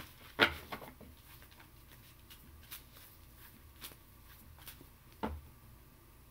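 Cards being handled on a table: a sharp tap about half a second in, scattered faint ticks and rustles, and another knock about five seconds in.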